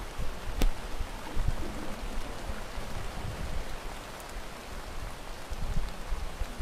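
Steady rain falling, with irregular low thuds and one sharp click about half a second in.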